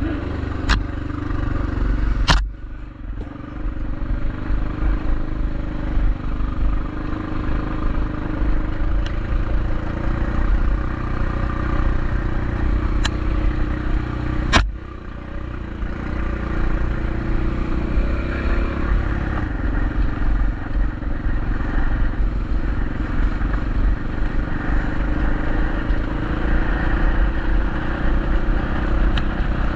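A bike being ridden, with a steady low rumble throughout. There are two sharp knocks, one about two seconds in and one about fifteen seconds in, each followed by a short drop in the rumble, and a couple of fainter clicks.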